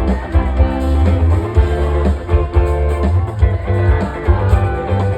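Live rock band playing the song: guitars over heavy bass and steady drum hits.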